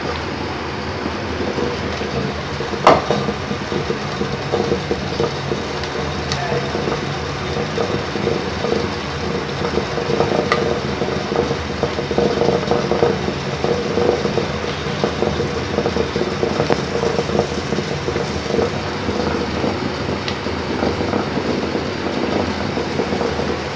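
A steady mechanical hum, with a few light clicks, the sharpest about three seconds in.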